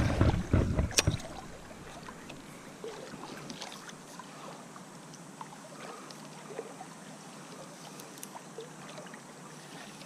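Canoe on a river: a loud low rumble and a sharp knock in the first second, then faint water sounds and small scattered knocks against the hull.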